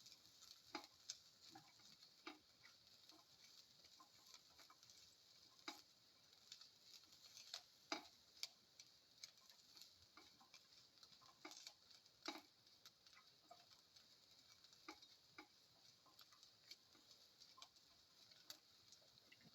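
Faint sizzling of ginger and garlic sauteing in oil in a pan, with irregular light clicks and taps of a spatula stirring against the pan.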